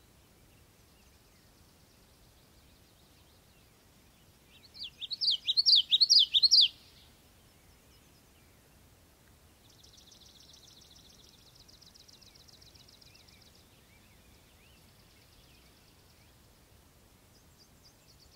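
Birds singing: a loud burst of quick, high, rising-and-falling whistled notes about five seconds in, then a fainter rapid high trill for a few seconds, with weaker trills near the end.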